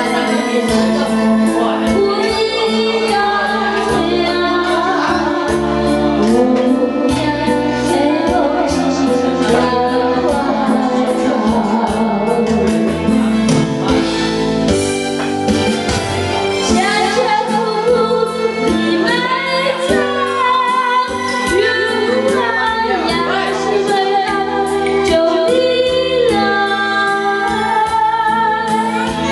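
Karaoke: a singer's voice through a handheld microphone over a recorded backing track.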